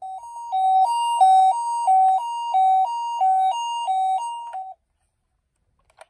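Toy ambulance's electronic two-tone siren, alternating evenly between a high and a low pitch, each tone about a third of a second, in the Japanese ambulance 'pee-po' pattern; it stops about a second before the end.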